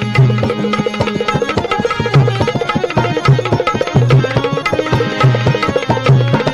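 Instrumental passage of a devotional bhajan: a steady hand-drum rhythm with deep bass strokes and fast lighter strikes, under a held drone and a melody line.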